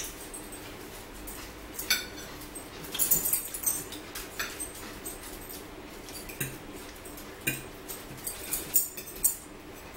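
Eating at the table: forks clicking and scraping on plates, with chewing and mouth smacks, as short scattered sharp sounds over a faint steady hum.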